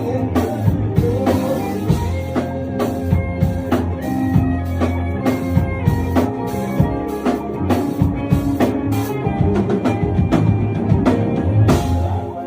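Band music: a drum kit keeping a steady beat, with bass and guitar playing.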